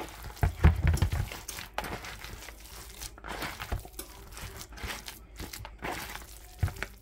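Hands squeezing and folding a moist ground-beef meatloaf mixture in a bowl: irregular wet squelching. The heaviest squelches and low thumps come about a second in.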